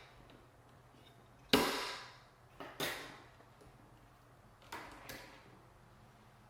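A few sharp clicks and knocks of small hard computer parts being handled during a mini PC build, the loudest about a second and a half in, then a double click near the three-second mark and two lighter ones later.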